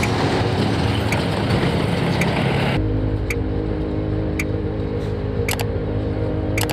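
Tank diesel engines running as T-72-family tanks drive. About three seconds in the sound changes abruptly to a steadier engine drone from a column of T-72B1MS tanks. A faint tick repeats about once a second throughout.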